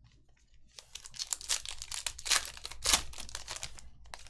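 Foil wrapper of a Donruss Optic basketball card pack being torn open and crinkled, a dense crackling for about three seconds with the loudest rips about halfway through and again near the end.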